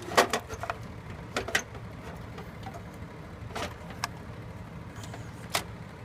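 Scattered sharp clicks and knocks, about six in all, of a hard drive in its sled being worked loose and pulled out of the HP d530's tool-less drive cage, over a steady low hum.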